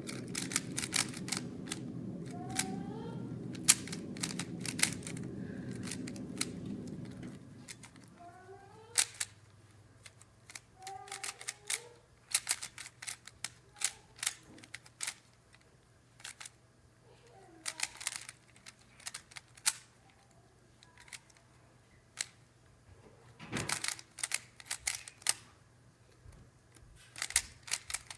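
3x3 Rubik's cube being turned rapidly during a speedsolve: plastic layers clicking in quick irregular flurries with short pauses. A steady low hum underneath stops about eight seconds in.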